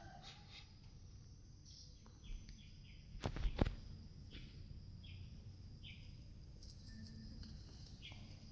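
Small birds chirping in short calls about once a second over a faint steady high-pitched hum. Two sharp knocks a little past three seconds in are the loudest sounds.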